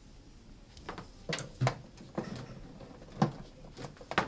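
A power cord being handled and plugged into the back panel of a small desktop CNC router. About five light clicks and knocks, the sharpest near the end.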